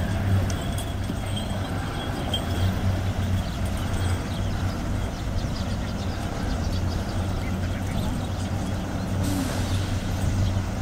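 A vehicle engine running steadily at low revs, a constant low hum, with faint footsteps of a crowd walking on the road.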